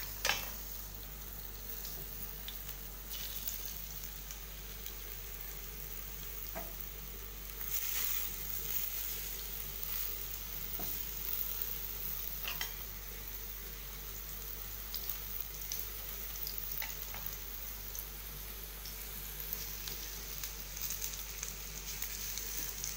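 Slices of alu vadi (colocasia leaf rolls) shallow-frying in a little oil in a non-stick frying pan: a steady sizzle with scattered small pops and clicks. There is a sharp click just after the start, and the sizzle is louder for a few seconds about eight seconds in.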